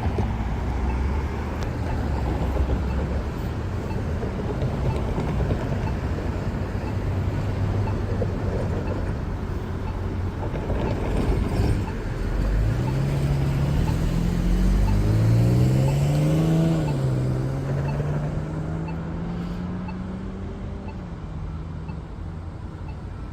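Steady road traffic noise. About halfway through, a vehicle accelerates: its motor note rises steeply for a few seconds, then levels off and fades.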